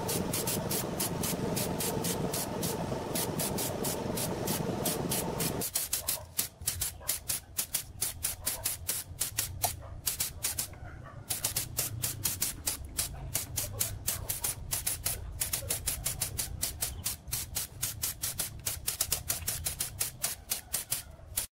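A compressed-air paint spray gun hissing steadily, overlaid with quick clicks a few times a second. About six seconds in the steady hiss drops away and only the short clicking spurts go on.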